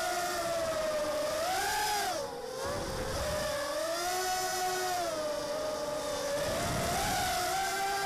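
Six small brushless motors (1306, 3100kv) and propellers of a racing hexacopter whining in flight, heard from its onboard camera, the pitch rising and falling with the throttle. About two seconds in the throttle is briefly cut, so the whine drops in pitch and level, then it climbs back.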